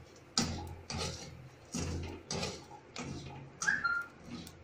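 Steel spatula stirring hot salt and black chickpeas in an aluminium kadhai: about six rhythmic scraping strokes, with a sharper squeak about three and a half seconds in. The chickpeas are being dry-roasted in the salt over a high flame until they split open.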